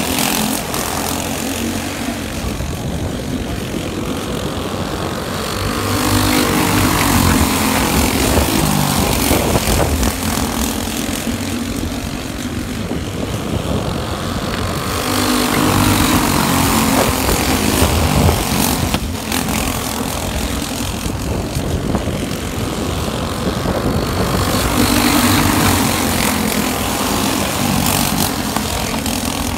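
Several racing go-kart engines buzzing at speed as the pack laps the track, the sound swelling as the karts pass close and fading as they go round the far side, about every nine seconds.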